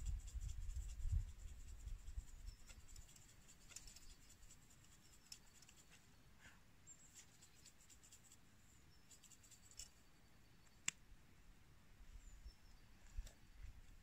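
Quiet forest ambience: faint, high chirps of small birds and scattered light clicks and crackles from a smouldering campfire, with one sharp snap about eleven seconds in. A low rumble fades out over the first couple of seconds.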